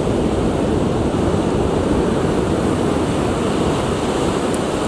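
Steady noise of surf and wind, with wind buffeting the microphone.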